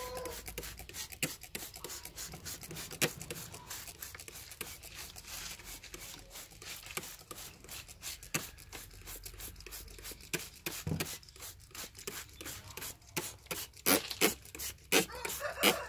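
Hand-pumped trigger spray bottle squirting cleaner over an engine bay: a string of short sprays, each a quick click and hiss, coming faster and louder near the end.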